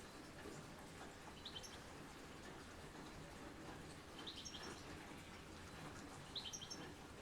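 Steady soft rain hiss, with a small songbird giving three short bursts of high chirps, about two seconds apart.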